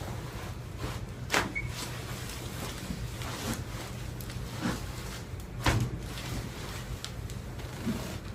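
Clicks and knocks during a chiropractic adjustment: a few short sharp knocks, the loudest about two-thirds of the way through, over a steady low hum.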